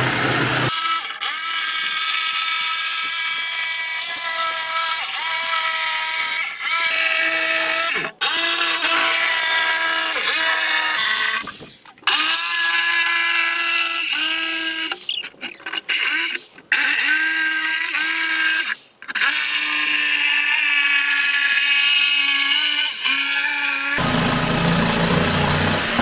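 Handheld electric power tool running in bursts, its motor whine shifting up and down in pitch and cutting out briefly several times. Near the end the whine stops and a rougher noise follows.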